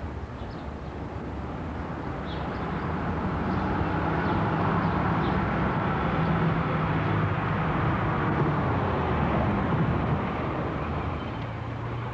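A car engine approaching, growing louder over several seconds, then dropping in pitch and fading as the car slows and pulls up.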